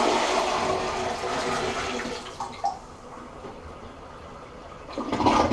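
Water poured from a wet/dry vacuum canister into a toilet bowl, gushing and splashing for about two seconds. The toilet then flushes by gravity, with a quieter rush of water draining from the bowl.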